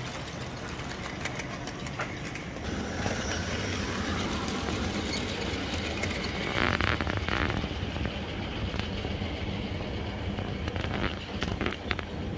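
OO-gauge model goods train, headed by a Hornby pannier tank locomotive, running on the track: a steady rumble of wheels on rail with a low motor hum, loudest around the middle. Sharp clicks follow near the end as the wagons cross rail joints.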